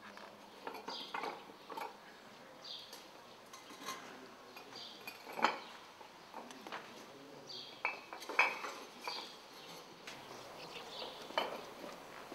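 Hollow terracotta bricks clinking and knocking as they are picked up, stacked on one another and set down on stone paving: a run of irregular sharp clinks, the loudest about five and a half and eight and a half seconds in.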